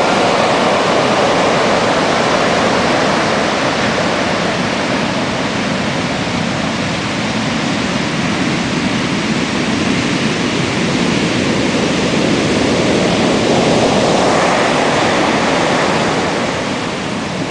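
Large storm waves breaking and washing up the beach: a loud, continuous rush of surf and white water that swells and eases slowly.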